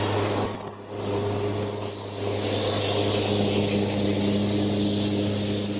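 Cub Cadet riding lawn mower engine running steadily under mowing load, with a constant low hum and two brief dips in level early on.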